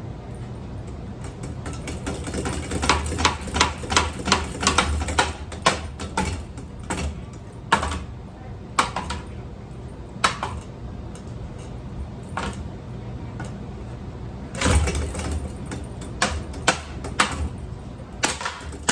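Metal parts of a ceiling fan clattering as they are struck and worked loose: rapid, irregular clicks and knocks in two busy spells, over a steady low hum.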